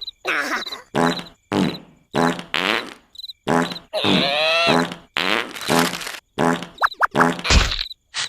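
Cartoon comic vocal sound effects: about a dozen short, pitched blurts in quick succession, each cut off sharply, with a longer one about four seconds in whose pitch sinks; snore- and fart-like gag noises.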